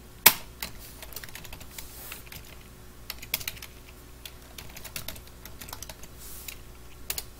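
Typing on a computer keyboard: irregular key clicks, with one sharper keystroke just after the start.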